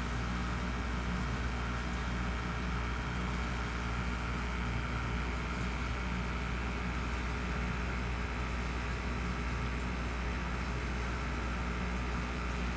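Steady low mechanical hum with an even hiss over it, from running aquarium equipment.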